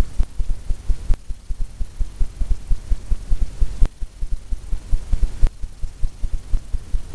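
Paintbrush tapping and stroking against a stretched canvas while blending the paint of a wave: a quick, irregular run of dull low thumps, a few a second, with a few faint clicks.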